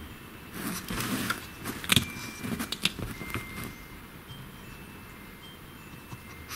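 A pug shifting on a fabric sofa and sniffing at a dried chew: a string of short snuffles and rustles in the first few seconds, then quieter.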